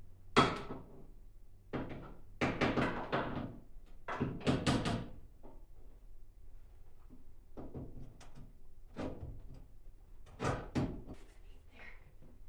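A series of knocks, clunks and clatters from things being handled and moved about at the camper's doorway floor. The loudest is a sharp knock about half a second in, followed by bunched clattering in the next few seconds and a few lighter knocks later.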